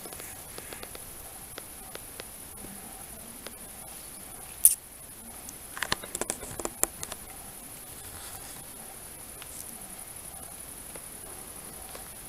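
Crickets chirring steadily in high pitch. A single sharp knock about a third of the way in, then a short flurry of clicks and rustles.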